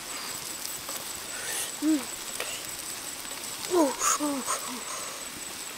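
Short low hooting calls, each rising and falling in pitch: one about two seconds in and a quick run of three near the four-second mark.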